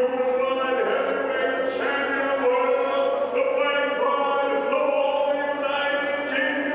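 A ring announcer's drawn-out, sing-song introduction of a heavyweight boxer. The vowels are stretched into long held notes, one after another, almost like singing.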